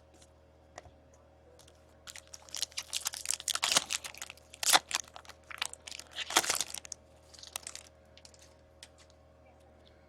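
Foil trading-card pack wrapper being torn open and crinkled by hand, a few seconds of dense crackling that is loudest in the middle and dies away near the end.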